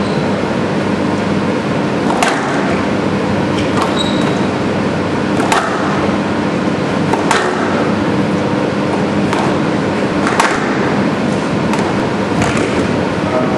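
Squash ball struck by rackets and hitting the court walls during a rally: sharp cracks every two seconds or so, over a steady hum.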